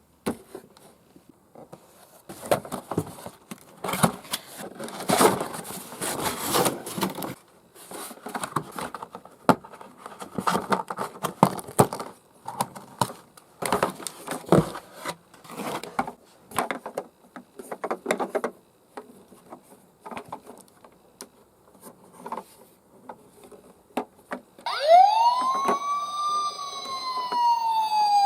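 Irregular plastic clattering and rattling from a toy ambulance minicar being handled and run. About 25 seconds in, the toy's electronic siren starts loud, gliding up and then slowly down in pitch.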